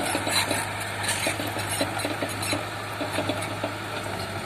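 Heavy diesel earthmoving machinery engine running steadily, a low hum with many small irregular clicks and knocks over it.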